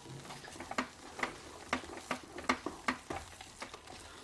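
Wooden spatula stirring thick moong dal halwa as it is roasted in ghee in a frying pan, a stage where the ghee is being cooked out to separate at the sides: soft clicks and pops about twice a second.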